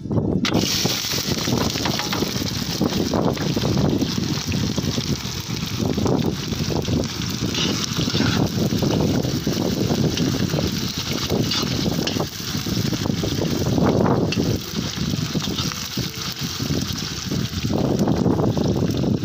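Chopped onion and carrot sizzling loudly as they hit hot rendered pork fat in a cast-iron kazan, frying hard throughout. The sizzle starts suddenly as the vegetables go in.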